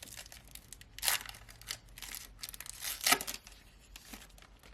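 Foil wrapper of a trading card pack being torn open and crinkled by hand, with two louder rips about one and three seconds in among smaller crackles.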